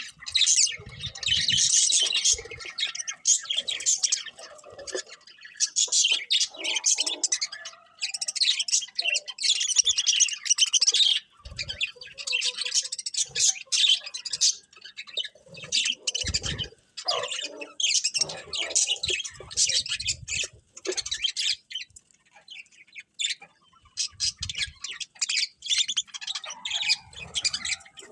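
Birds chirping and tweeting rapidly in long, busy runs broken by short pauses, with a few dull low thumps now and then.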